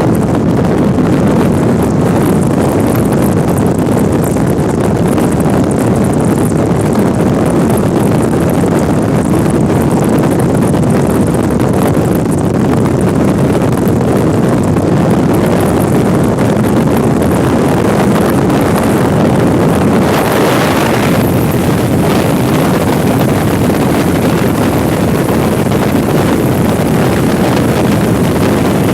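Loud, steady rush of storm wind on the microphone, with a brief brighter hiss about twenty seconds in.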